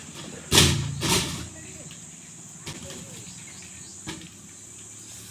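PVC pipes being slid down off a truck's load: two loud hollow clattering scrapes about half a second and a second in, then a few faint knocks. A steady high insect buzz runs underneath.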